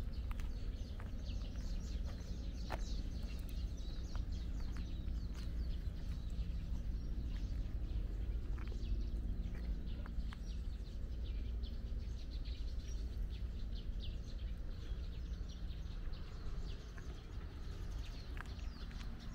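Walking footsteps on a park path, with small birds chirping now and then over a steady low rumble.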